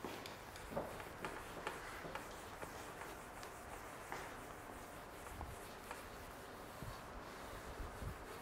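Whiteboard eraser rubbing across the board in repeated short wiping strokes, wiping off marker writing, with a few soft knocks near the end.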